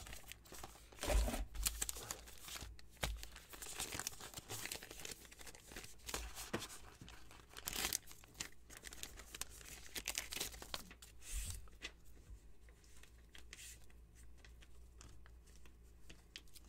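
Brown kraft-paper envelope being torn open and crumpled by hand: repeated irregular tearing and crinkling, thinning out after about twelve seconds.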